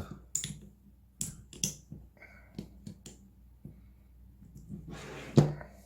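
Small magnets being handled and clicking against each other, a string of separate sharp clicks, with one louder knock near the end.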